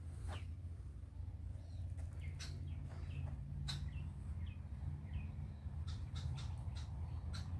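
Small birds chirping now and then over a low steady rumble, with a run of short sharp clicks near the end.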